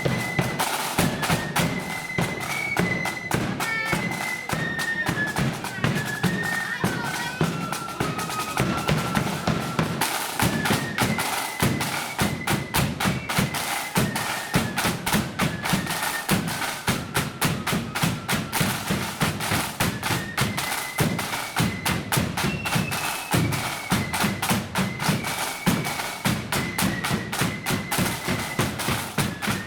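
A marching band plays a tune on high-pitched wind instruments over rapid, continuous snare drumming and a steady bass drum beat.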